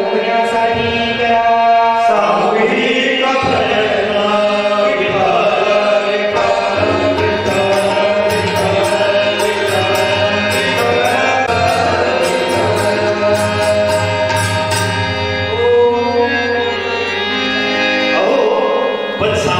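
Kirtan performance: male voices singing a chant-like melody over steady instrumental accompaniment, with a run of rapid high ticking percussion from about seven to fifteen seconds in.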